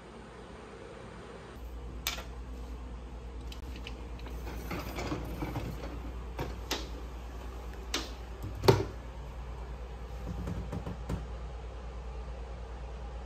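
Several sharp clicks and knocks, the loudest about two-thirds of the way in, over a steady low hum that starts about a second and a half in.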